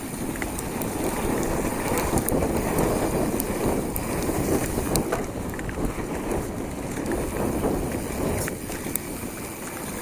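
Hardtail mountain bike rolling fast down a loose, dusty dirt trail: a steady crunch of tyres on dirt and grit, with wind noise on the microphone. Occasional sharp clicks and rattles come from the bike over bumps.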